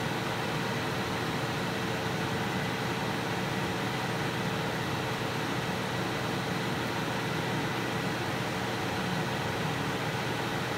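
A steady mechanical hum and hiss, even throughout, with a few constant tones in it and no crackles or pops standing out.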